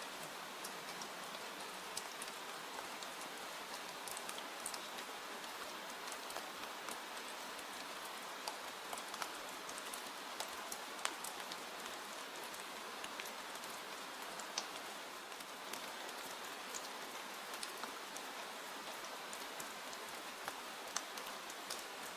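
Steady rain, an even hiss with many scattered sharp ticks.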